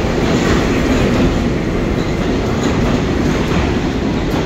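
R68A subway train leaving an underground station, its wheels and cars making a loud, steady rumble on the rails as the last cars pass and it heads into the tunnel.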